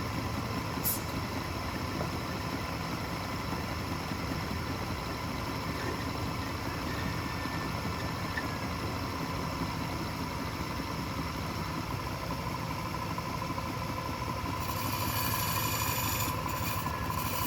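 Wood lathe motor running with a steady hum. A brighter hiss joins about three seconds before the end.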